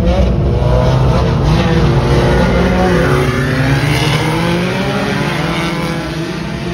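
Several front-wheel-drive race cars racing together, their engines revving up and down, with overlapping engine notes that rise and fall as the cars go by.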